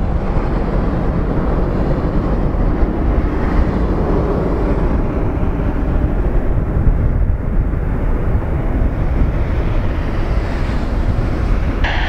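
Jet airliner's engines at takeoff power during the takeoff roll: a loud, steady low rumble, with wind buffeting the microphone. A radio voice cuts in near the end.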